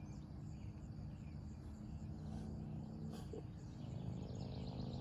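Faint outdoor insect chorus, crickets chirping steadily, over a low steady hum.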